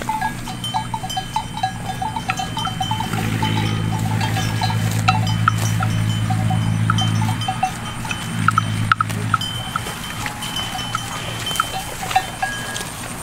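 Bells hung on grazing water buffalo clink and clank irregularly as the animals move. A steady low drone comes in about three seconds in and fades past the middle.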